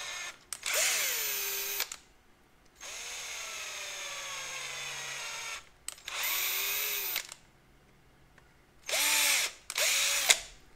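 Cordless drill driving a tap back through a pre-tapped hole in an aluminium mount, chasing a thread that a screw would not go into. It runs in five short bursts of motor whine, the pitch falling within the runs, with a sharp click near the end.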